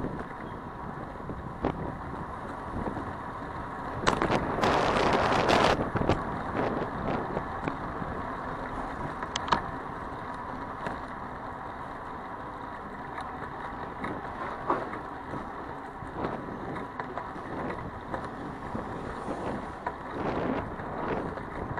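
City traffic and road noise heard from a moving bicycle, with wind on the microphone. About four seconds in, a loud hiss lasts roughly a second and a half.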